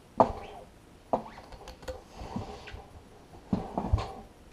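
Metal parts of a steel hydraulic cylinder knocking and clanking as the rod end and gland are twisted and worked by hand to free the gland from the barrel: a sharp knock with a short ring, another about a second later, and a quick cluster of knocks near the end.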